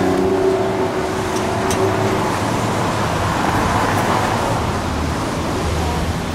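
Steady city street traffic noise: cars and their engines passing close by.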